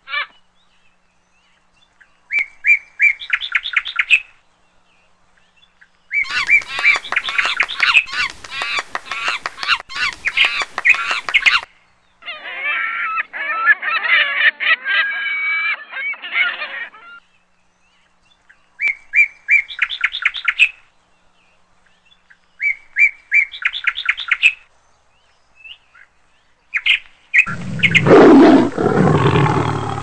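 Recorded animal sounds played from the loudspeakers of an animatronic animal display. Bursts of bird-like chirping recur in the same pattern several times, with a stretch of dense chattering calls in between, and a loud low roar near the end.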